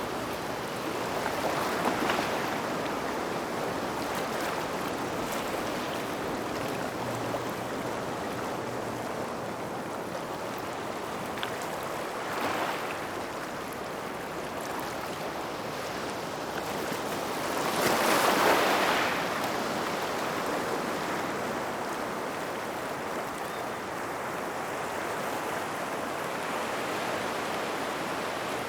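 Small waves washing onto a gravel beach near rocks, a steady wash of water over stones with swells about two seconds in, around twelve seconds in and, loudest, around eighteen seconds in.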